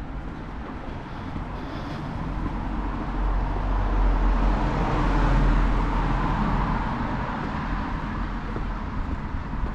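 A car passing along the street: its tyre and engine noise grows louder, is loudest a few seconds in, then fades away, over a steady low city hum.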